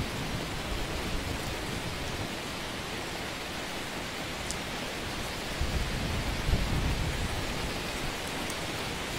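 Steady hiss-like noise across all pitches, with a low rumble swelling about six to seven seconds in.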